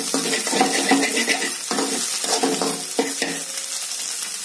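Metal spatula scraping and stirring scrambled eggs in a hot oiled kadai over a steady sizzle of frying, the strokes grating with a ringing tone and an occasional knock on the pan. The stirring stops about three and a half seconds in while the sizzle goes on.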